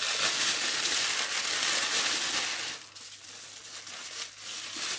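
Thin plastic carrier bags crinkling and rustling as they are pulled open and peeled off a wrapped package. The crinkling is loud and continuous for the first two to three seconds, then drops to softer, occasional rustles.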